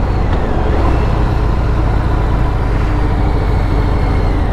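Motorcycle ridden fast over a rough road: a steady, loud rush of wind and road noise, with the engine running underneath.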